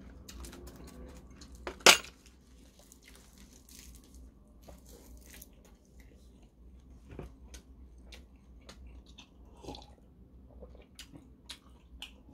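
A person chewing a mouthful of rice wrapped in seaweed, with small clicks of a spoon on dishes; one sharp clink about two seconds in is the loudest sound.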